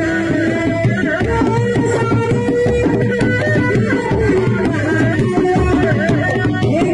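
Dogdog reak drums, Sundanese single-headed drums, beaten with sticks and hands in a dense interlocking rhythm, with a wavering held melody line over the drumming.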